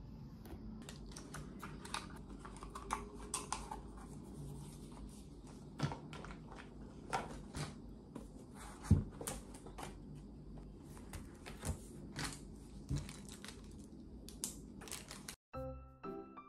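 Paper and packaging rustling on a desk, with scattered taps and clicks of small objects being handled and set down, over a low room hum. Music starts near the end.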